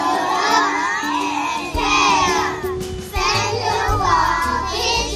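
A group of young children voicing phrases together in unison over a backing music track. A bass line comes in about two seconds in.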